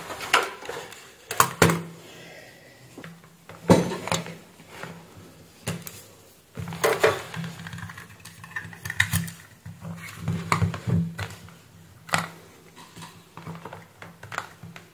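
Clicks, knocks and light clatter of a small plastic satellite receiver and its power-adapter plug and cables being handled and connected on a workbench.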